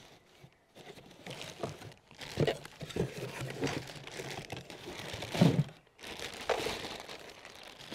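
Plastic bag wrapping crinkling and cardboard rustling as parts are handled and lifted out of a box, with a few light knocks; the loudest is about five and a half seconds in.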